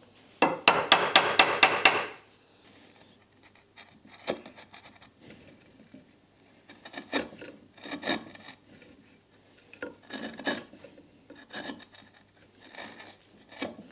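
A wooden mallet strikes a chisel about seven times in a second and a half, chopping into the hardwood. Then a chisel pares and scrapes the wood by hand in short, irregular strokes.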